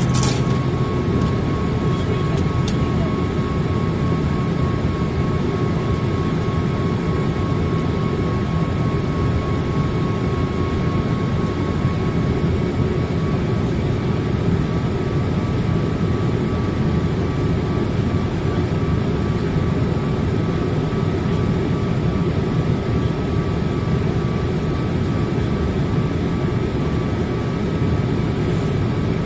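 Steady cabin noise inside a Boeing 787-8 Dreamliner in flight: a constant deep rush of jet engines and airflow with a faint steady whine above it. There is a sharp click right at the start.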